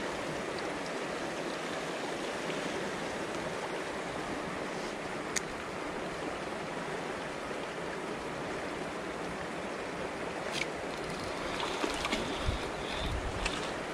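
Shallow, rocky creek running steadily, a constant rush of water. A couple of single sharp ticks fall in the middle. Near the end, low thumps and a few knocks join in as a hooked trout splashes at the surface.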